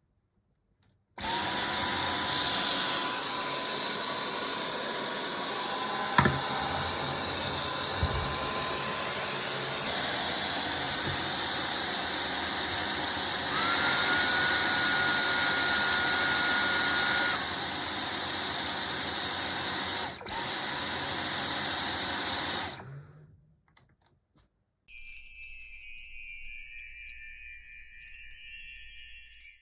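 Dyson cordless stick vacuum running with a steady rushing airflow and a high motor whine. A few seconds past the middle, the whine jumps higher and louder for about four seconds, then drops back to the lower setting before the motor stops. A short chiming musical sound effect follows near the end.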